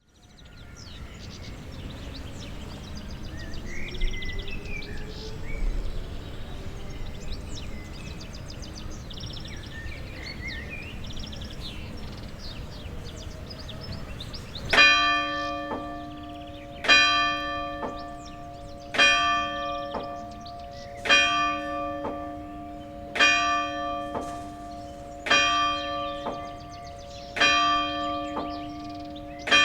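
Church bell of the Église Sainte-Marie-Madeleine striking the hour of noon. Starting about halfway in, there are eight evenly spaced single strokes, about one every two seconds, each ringing on until the next lands.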